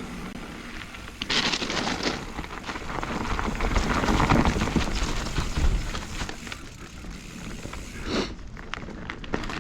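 Knobby tubeless mountain bike tyres rolling over a dirt trail, with gravel crackle and the bike rattling over bumps, louder from about one to six seconds in. A short sharp sound near the end.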